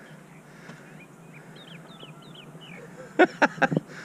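Birds calling: faint, short chirps throughout, then a run of four short, loud, harsh calls a little past three seconds in.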